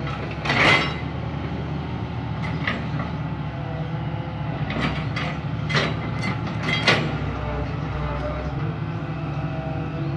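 Hitachi EX301 long-reach excavator running steadily as its hydraulic boom and bucket swing, with sharp metallic clanks about half a second in, fainter ones around two and a half seconds, and a cluster between about five and seven seconds.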